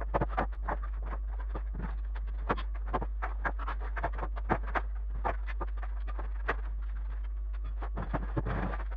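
Irregular sharp clicks and knocks, two or three a second, over a steady low hum.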